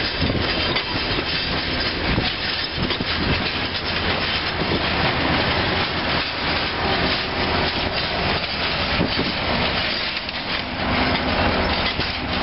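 Passenger coaches rolling past, their steel wheels clattering over the rail joints in a steady rumble.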